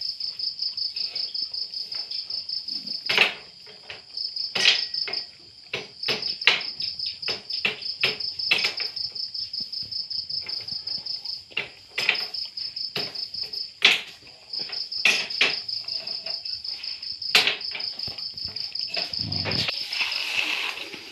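A cricket chirping in a steady, rapid pulsed trill that breaks off briefly now and then. Over it, a dog eating from a plastic bowl makes irregular sharp clicks and knocks, which are the loudest sounds.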